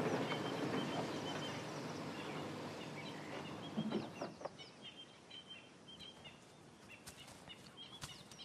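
Birds chirping and calling: short repeated chirps and a few quick falling whistles, over a background noise that fades away over the first four seconds or so. A few sharp clicks near the end.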